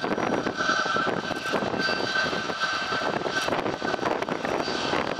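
A Boeing C-17 Globemaster III's four Pratt & Whitney F117 turbofans running at taxi power as the jet taxis: a steady jet rumble with a high whine held on one pitch.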